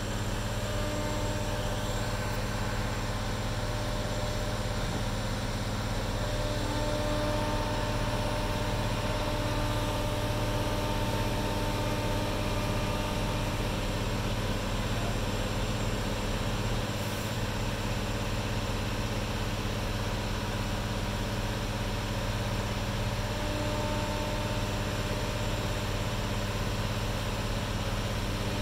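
Mobile crane's engine running steadily, an even engine hum with several steady tones, while the crane holds a sailboat in its lifting sling.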